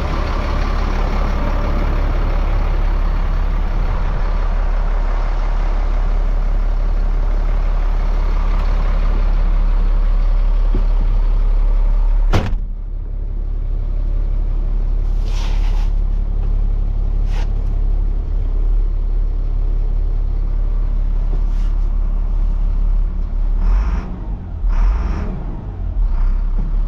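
2000 Chevrolet rollback truck's engine idling steadily. About halfway through, the cab door slams shut, and after that the idle is heard muffled from inside the cab, with a few small clicks and rustles near the end.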